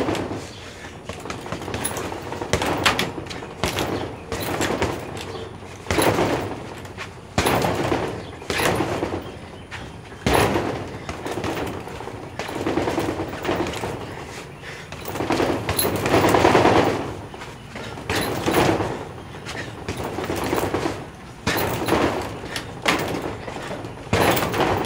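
Fists in hand wraps punching a hanging canvas heavy bag, with sharp thuds at an irregular pace, some single and some in quick runs of several.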